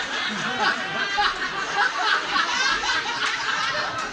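Audience laughing and chattering, many voices at once.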